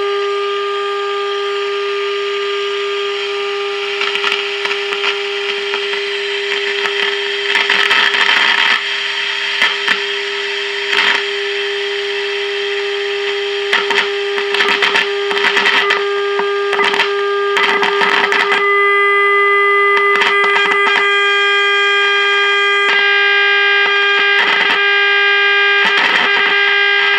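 An AA5 tube radio's speaker sounding a steady, buzzy test tone from a signal generator during oscillator alignment, broken by bursts of crackling static. About eighteen seconds in, the tone comes in louder and fuller as the set is brought onto the signal.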